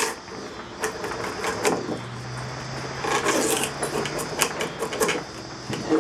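Draw knife shaving green black locust wood, a run of uneven slicing strokes, each a short scrape as a shaving peels off the handle blank.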